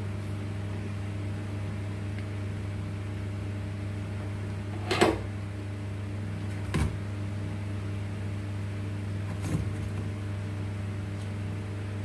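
Steady low electrical hum under light knocks and taps from work on the amplifier's circuit board, the loudest knock about five seconds in and two smaller ones near seven and nine and a half seconds.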